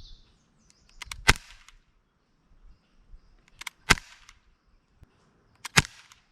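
Lancer Tactical LTX3 CO2 half-blowback airsoft pistol fired three times, a little under two seconds apart. Each shot is a sharp crack with a softer click just before it. Birds chirp faintly near the start.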